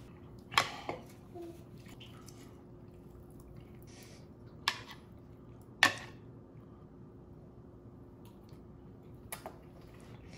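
A handful of short, sharp clicks and taps, a few seconds apart, typical of utensils on bowls and dishes at a meal table, over a faint steady hum.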